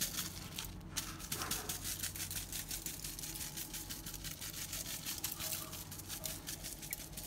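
Paper spice sachet of mixed pepper being shaken over a foil-lined tray of vegetables: a quick run of soft rustling ticks, with a low steady hum underneath.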